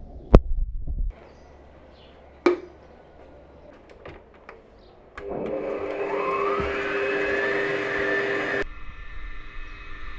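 A sharp knock near the start and a smaller one about two seconds later, then an electric stand mixer's motor starts about five seconds in and runs for about three seconds, its whine rising as it speeds up, before stopping abruptly.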